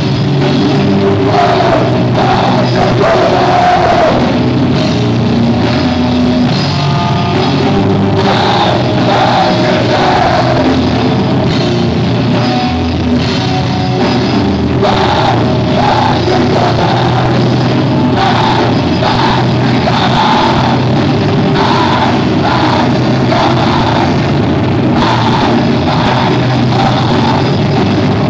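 Screamo band playing live, loud and without a break: distorted electric guitars and drum kit with screamed vocals over the top.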